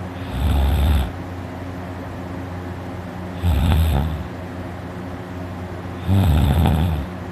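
A person snoring loudly: three long snores, each just under a second, evenly spaced about three seconds apart. The snorer takes the sound to come from his vibrating uvula.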